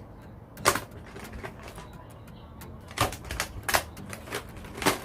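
Pens being handled and knocking together: a few sharp clicks, the loudest just under a second in, then several more between about three and five seconds.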